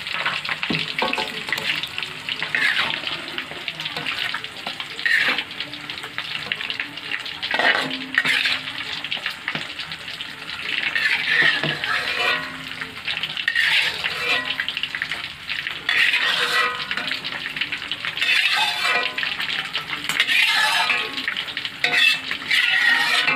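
Sauce sizzling in a hot wok while a metal spatula scrapes along the pan in repeated strokes, scooping the stir-fry into a bowl.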